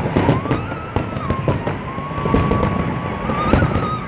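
Large aerial fireworks display: many shells bursting in a dense, irregular run of bangs and crackles.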